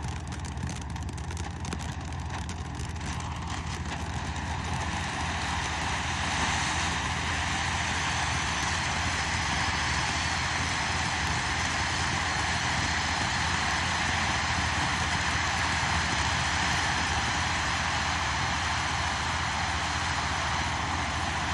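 Firework fountain spraying with a steady hiss, which grows louder about five seconds in and then holds.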